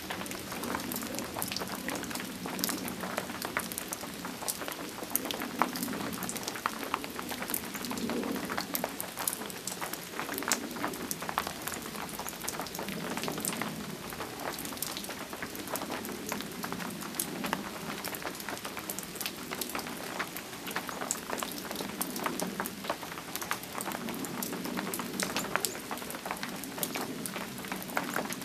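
Steady rain falling, with the sharp ticks of many individual drops striking surfaces close by.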